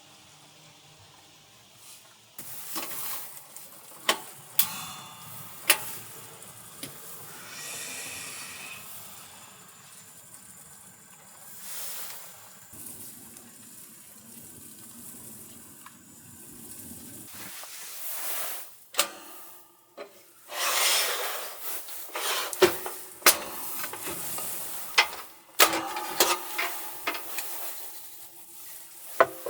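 Food frying in a pan with a steady sizzling hiss, broken by sharp clicks and knocks of handling that grow busier in the second half.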